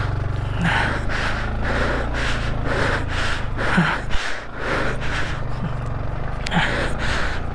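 Yamaha Vixion motorcycle's single-cylinder engine running steadily at low revs, with the rider's hard, rapid breathing from exertion over it, about two breaths a second, and a few short grunts.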